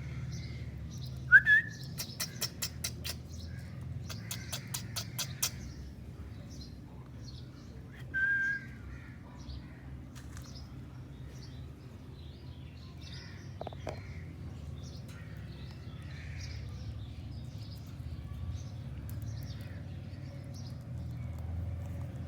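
Parrots calling: a short rising squawk about a second in and a steady call around eight seconds in. Between them come two quick runs of sharp clicks, all over faint continuous chirping of other birds and a steady low hum.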